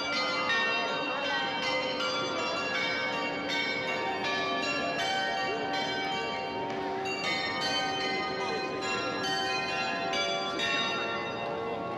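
The Swiss Glockenspiel clock tower's carillon of small bells playing a tune: a steady run of struck bell notes, a few a second, each ringing on into the next.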